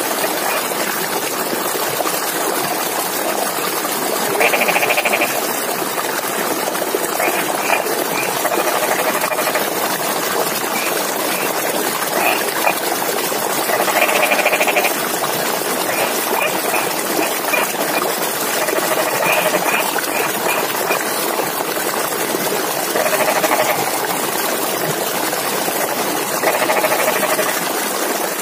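Frogs calling from flooded rice paddies: rapid pulsed croaks in bursts of about a second, repeating every few seconds, over a steady hiss.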